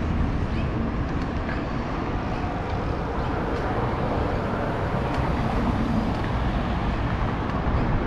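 Steady rumbling ride noise from an electric mountain bike on the move, mixed with road traffic.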